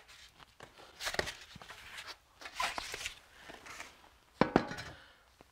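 Handling noises as foam protective pieces are pulled off a toilet cistern frame and a plastic fascia panel is fitted: scattered rustles and light knocks. The loudest is a sharp knock about four seconds in.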